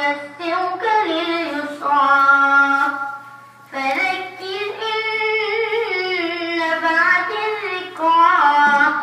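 A single high voice chanting Quran recitation in long, melodic held notes with ornamented turns, taking a short breath about three and a half seconds in.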